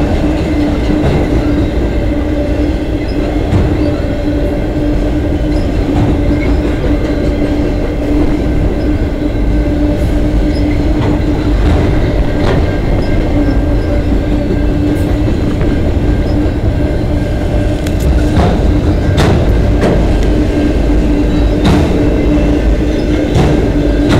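Freight train of autorack cars rolling past, loud: a steady rumble with a constant hum, and wheels clicking over rail joints at irregular intervals, more often in the second half.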